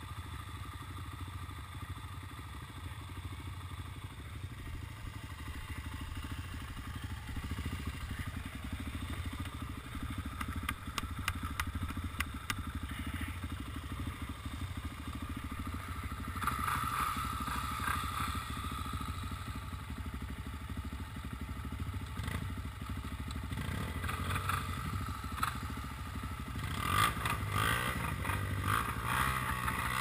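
Quad ATV engine idling steadily, with a second ATV's engine revving up and down around the middle and again near the end.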